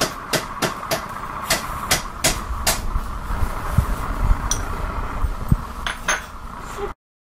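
Irregular sharp taps and clicks, two or three a second, from hands working at a metal baking sheet of cookies, over a steady hiss. The sound cuts out abruptly near the end.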